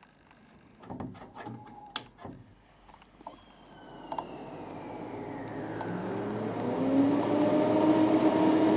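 Phoenix 2000 imagesetter powering up: a few clicks and knocks, then its motors spinning up, a hum that rises in pitch and grows steadily louder, with a fainter whine falling in pitch.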